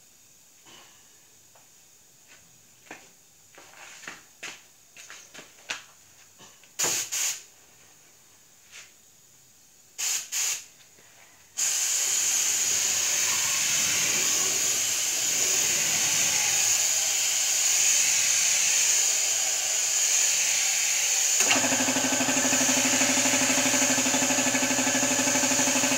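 Compressed-air spray gun spraying wood finish: a few clicks and two pairs of short spray bursts, then about twelve seconds in a steady hiss of air and spray that runs on. Guitar music comes in near the end.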